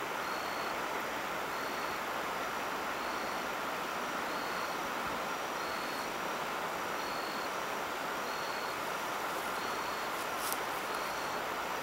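Steady rushing of a shallow creek flowing over rocks, with a short high note repeating about once a second over it.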